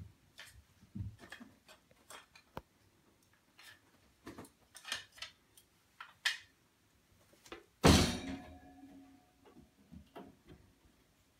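Scattered light taps and knocks from a capuchin monkey moving about and handling things. About eight seconds in comes one loud bang with a short ringing rattle, as the monkey lands on and grabs an over-the-door wire rack, followed by a few more knocks.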